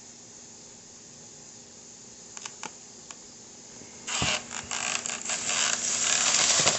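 A few faint clicks, then about four seconds in a cloth towel starts being rubbed hard across a tabletop, a rough scrubbing in quick, uneven strokes as the table is wiped down.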